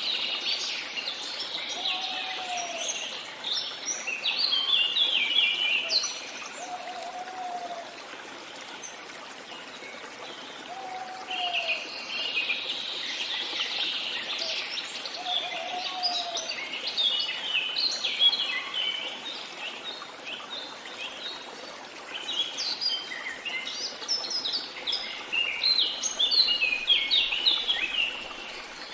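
Songbirds singing in busy, overlapping chirping phrases over a steady wash of running water. A short, low call repeats about every two seconds through the first half.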